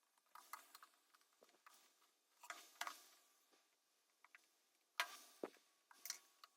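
Faint, scattered clicks and light knocks from small plastic parts and tools being handled while a Dyson Corrale hair straightener is taken apart, with a slightly sharper knock about five seconds in.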